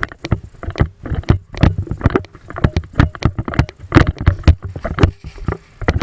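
A player's hurried footsteps and gear knocking as they move: irregular thumps and clatters, about three to five a second.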